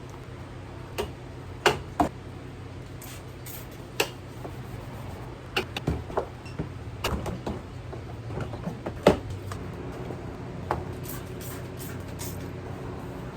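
Scattered knocks, clicks and clatter of containers, shelves and drawers being handled and set down while a fridge is being cleaned out, over a steady low hum.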